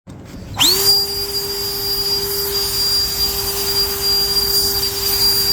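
Saker handheld jet blower switched on: about half a second in its motor spins up quickly to a steady high whine over a rush of air.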